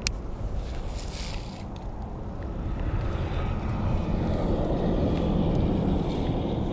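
Steady low outdoor rumble, with a sharp click at the start and a short hiss about a second in from a baitcasting reel casting line out.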